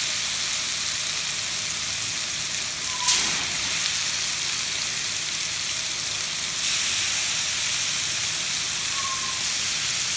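Marinated chicken boti skewers sizzling in a little hot oil in a frying pan, a steady hiss. There is a sharp tap about three seconds in, and the sizzle grows louder near seven seconds in as another skewer goes into the pan.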